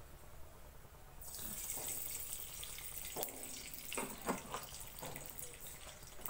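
Cooking oil poured into a hot aluminium wok on a gas stove about a second in, then hissing steadily as it heats. A few light clicks come near the middle.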